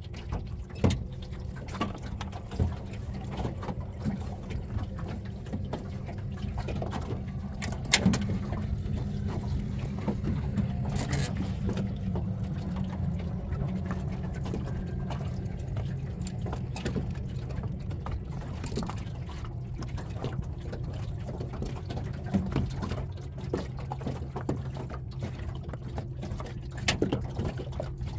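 Small boat's outboard motor running steadily with a low hum. Water slaps against the hull in short sharp knocks throughout.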